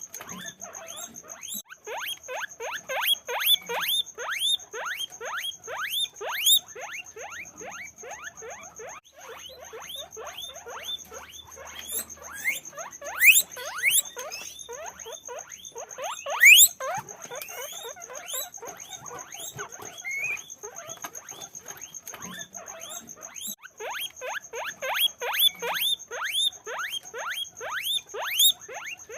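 Many guinea pigs squeaking together: a dense, overlapping run of short squeaks, each sliding down in pitch, several a second, with two louder, higher squeaks near the middle.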